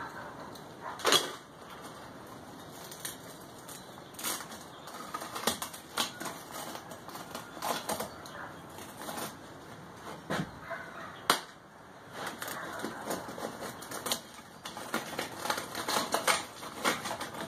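Old, rigid refractory cement being broken and pulled by gloved hands off a ceramic fiber (Kaowool) forge lining: irregular cracking and clicking as pieces come away, with soft rubbing in between.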